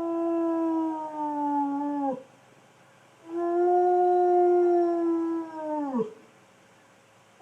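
A dog howling: two long howls, each held at a steady pitch and then dropping away at the end. The first is already under way and ends about two seconds in; the second starts about a second later and ends about six seconds in.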